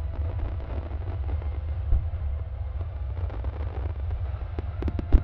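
Aerial firework shells at a display: a steady low rumble of echoing detonations, a dull boom about two seconds in, and two sharper bangs near the end.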